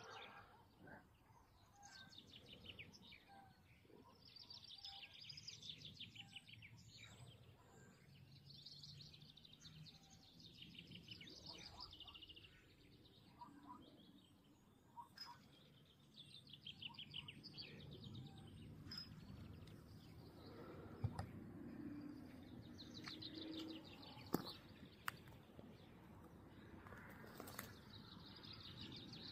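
Faint songbirds singing, repeated fast trilled phrases one after another, with a few sharp ticks and a soft low background hum.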